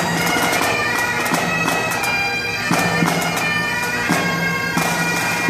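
A pipe band's Great Highland bagpipes playing together during a warm-up, steady drones under the chanter melody, with short sharp strokes cutting through.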